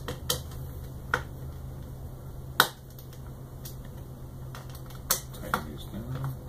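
Sharp clicks and taps of small metal hardware and fingers on a black acrylic plate as it is handled during assembly: about five separate clicks, the loudest a little before the middle.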